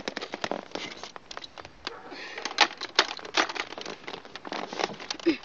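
Irregular clicks, taps and rustling, a few of them sharp, with no steady sound underneath.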